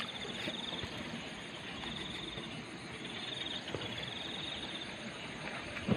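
An insect trilling in short repeated bursts of rapid high-pitched pulses, over a steady background hiss.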